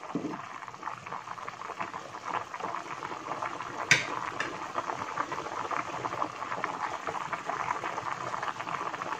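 Macaroni soup in tomato broth bubbling at a rolling boil in a pot, a steady crackle of bursting bubbles. A single sharp click about four seconds in.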